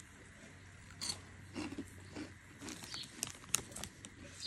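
Crinkling of a foil-lined snack bag and crunching of crunchy puffed snacks, in a series of irregular short crackles and crunches about a second in and again through the second half.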